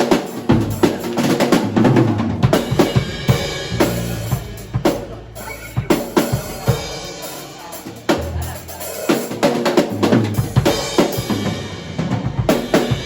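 Drum kit being played: many quick hits in a busy, uneven pattern, with held low notes underneath.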